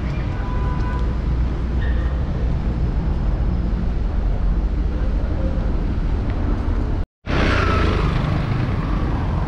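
Urban street traffic heard from the pavement: a steady low rumble of passing vehicles, broken by a brief dropout about seven seconds in. After it, a motor scooter and cars pass close by with a brighter, louder hiss.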